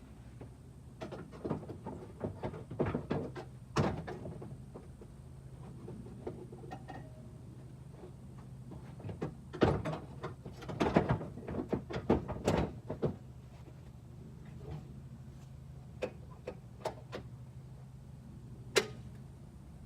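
Seed hopper being set onto a John Deere 7300 planter row unit and locked in place: two spells of clunks and rattles of plastic and metal, then a few single clicks near the end, over a steady low hum.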